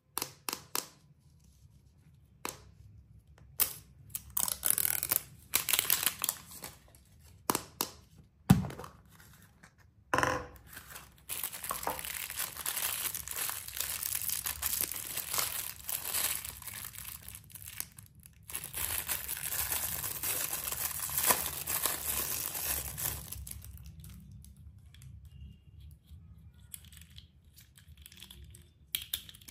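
Plastic and foil candy packaging being torn open and crinkled by hand: separate sharp snaps and short tears over the first several seconds, then steady crinkling of a foil packet that thins out to a few faint small clicks near the end.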